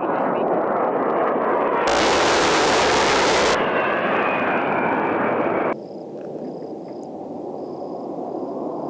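A-10 Thunderbolt II jet passing with steady engine noise; about two seconds in, a loud burst from its GAU-8 30 mm rotary cannon lasting under two seconds, followed by a falling engine whine. About six seconds in the sound drops suddenly to quieter jet noise.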